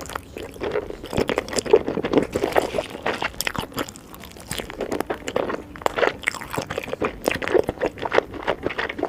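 Close-miked crunching and chewing of crunchy food: a dense run of quick, crisp crackles, easing briefly about four seconds in.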